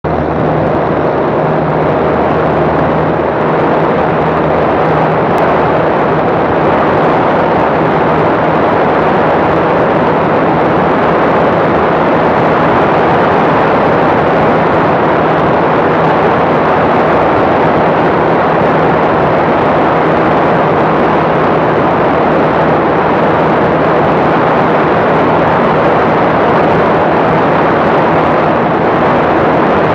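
Steady rush of wind over a camera mounted on a light airplane's landing gear, with the low, even drone of the airplane's engine and propeller beneath it, through the takeoff roll and climb-out.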